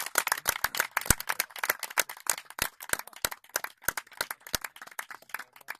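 A small group of people clapping by hand. The applause thins out over the last couple of seconds and dies away near the end.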